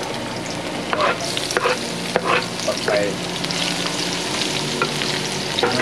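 Beef stir-fry sizzling steadily in a hot pan, with a spatula scraping and knocking against the pan several times as it is stirred.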